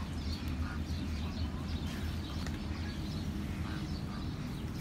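Aviary ambience: faint, scattered chirps of birds over a steady low rumble.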